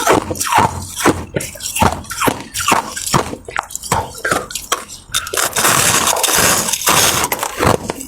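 Ice being bitten and crunched close to the microphone: a quick, uneven run of sharp cracks, then a denser, continuous crackling from about five seconds in until near the end.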